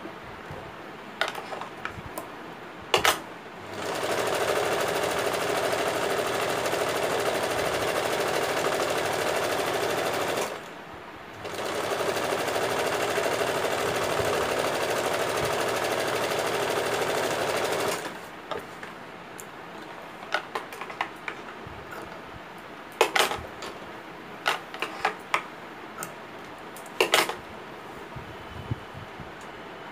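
Electric sewing machine running steadily as it stitches along a blouse's neck binding, in two runs of about six seconds each with a short stop between. Sharp clicks and brief handling noises come before and after the runs.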